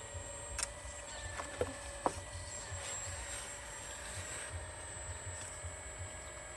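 Steady whine of a radio-controlled construction model's electric drive, with a few sharp clicks and knocks of the model's parts in the first two seconds.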